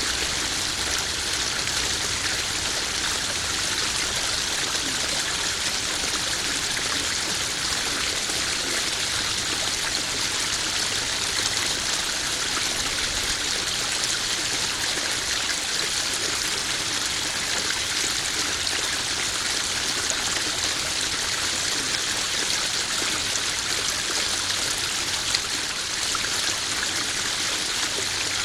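Small garden koi pond waterfall: water spilling and trickling steadily into the pond, an even splashing hiss with no change in level.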